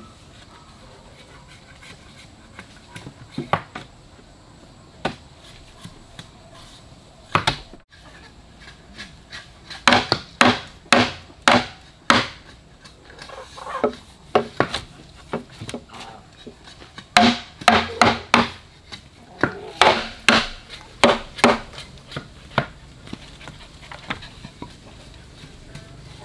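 An uneven series of sharp chopping strikes on wood. They come only now and then at first, then in quick runs of two or three a second through the middle of the stretch.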